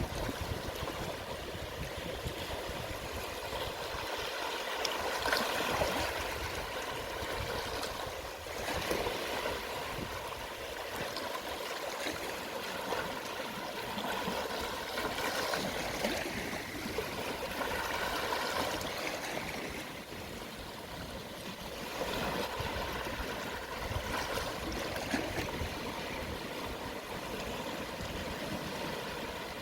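Small, gentle sea waves washing onto the shore at low tide: a steady hiss of water that swells every few seconds as each wave comes in.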